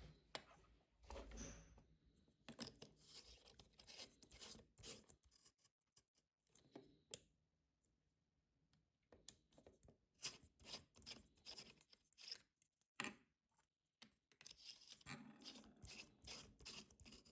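Faint, irregular clicking and scratching of small objects being handled, with a short lull around the middle.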